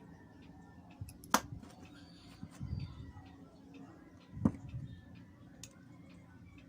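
Small hard clicks and knocks from handling a GoPro camera body and small tools during a lens swap, two sharp clicks standing out about a second and a half in and near the middle, with some duller bumps between. A faint regular ticking runs underneath.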